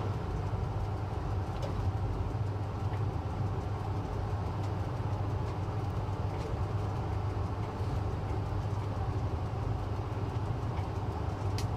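Train running on rails: a steady low rumble with a few faint clicks and one sharper click near the end.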